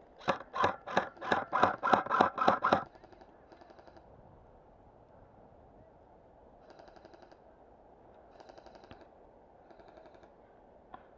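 An airsoft gun fires about a dozen quick shots, roughly four a second, in the first three seconds. Fainter bursts of airsoft fire from farther off follow several times.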